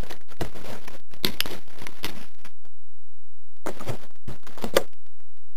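Crackling and rustling handling noise on a small camera mounted under an RC plane's wing as the plane is held and moved. It comes in two spells with a gap of about a second between them, then thins to a few clicks near the end.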